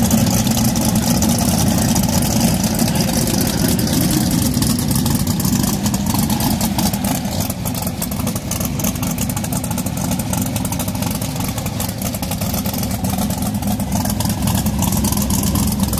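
Turbocharged big-tire drag-race car engines idling loudly and steadily, with small swells.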